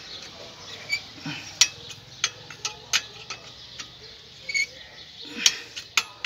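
Metal clinks and ticks of a 10 mm L-shaped wrench working the exhaust header nuts on a Honda Bros 125 engine: about a dozen sharp, irregular taps, a few ringing briefly. The nuts are being tightened to crush the exhaust gasket and stop an exhaust leak.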